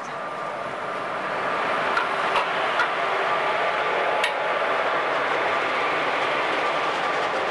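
A train hauled by an Indian Railways WAP-4 electric locomotive passing close alongside on the next track, heard from an open coach doorway. The wheel and rail noise grows louder over the first couple of seconds and then holds steady, with a few sharp clicks and a faint steady tone underneath.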